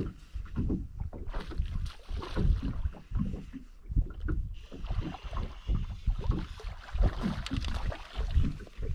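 Wind buffeting the microphone and water lapping against the hull of a bass boat, coming in irregular low gusts.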